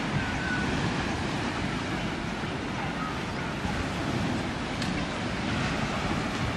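Steady rushing noise of sea surf, with wind buffeting the microphone.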